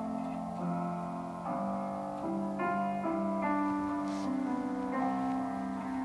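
Slow instrumental keyboard music, with held notes changing every second or so.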